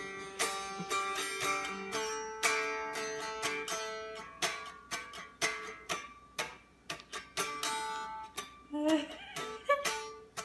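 Guitar being picked, a steady run of plucked notes and chords ringing out one after another.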